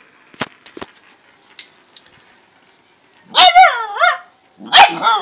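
Labrador puppy barking: high-pitched yaps about three and a half seconds in, and another loud bark near the end, after a few sharp knocks in the first two seconds.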